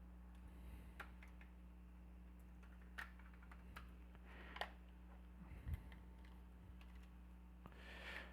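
Faint, scattered clicks and taps of plastic parts as a PlayStation 4 DualShock 4 controller is handled and fitted back together, a few separate clicks several seconds apart.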